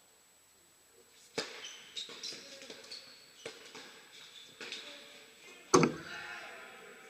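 Tennis rally on an indoor hard court: sharp racket-on-ball hits, the first about a second and a half in, with sneaker squeaks between them. The loudest hit comes near the end and echoes in the hall.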